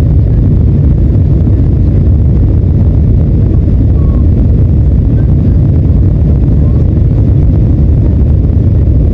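Airliner cabin noise: a loud, steady low rumble of jet engines and airflow.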